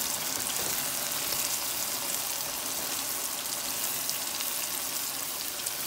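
Eggplant strips sizzling as they sauté in oil and masala in a pan: a steady hiss.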